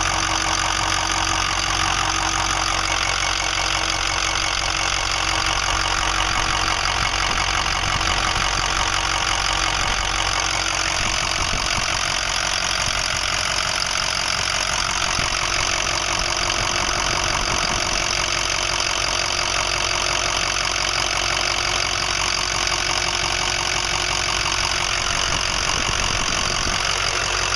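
2005 Ford 6.0L Power Stroke V8 turbo diesel idling steadily with its diesel clatter, showing a fault that appeared after reman injectors were fitted. The owner suspects a bad injector, FICM or injector wiring harness.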